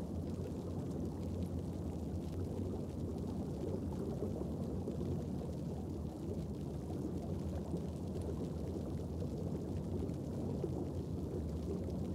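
Underwater ambient sound: a steady low rumble of moving water with faint scattered clicks.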